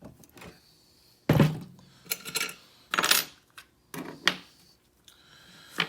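A series of about six sharp metallic clinks and clunks, the loudest with a dull thud about a second in, as a lock cylinder and tools are handled and set down on a table to begin taking the lock apart.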